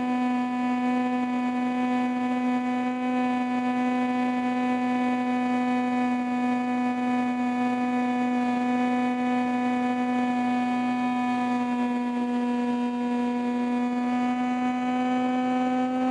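RC airplane's motor and propeller running in flight, heard from a camera mounted on the plane: a steady droning tone that sags a little past the middle and climbs again near the end.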